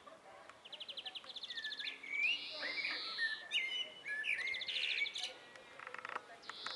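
Male Eurasian blackbird singing: a series of whistled phrases that glide up and down, mixed with fast high trills.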